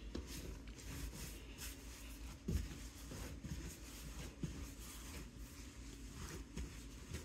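Hands kneading and rolling soft dough on a floured granite countertop: faint, irregular rubbing and soft pats, one a little louder about two and a half seconds in.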